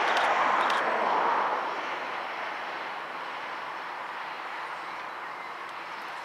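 Régiolis regional train running past at a distance, its rumble of wheels and engines loudest in the first second or so, then fading steadily as it moves away.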